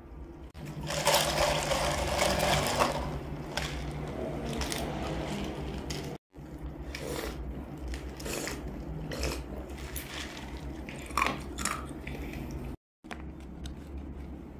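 Drinking iced peach tea from a plastic cup: a loud stretch of sipping about a second in, then a series of short gulps and swallows. Plastic snack packets rustle near the end.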